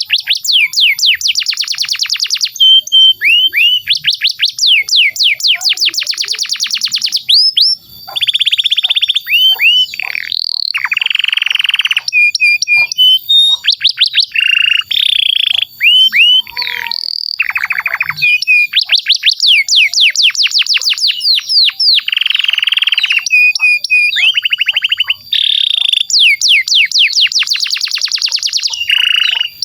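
Domestic canary singing a long unbroken song of fast rolling trills. Phrases change every second or two between rapid series of repeated notes, buzzing rolls and short whistled notes.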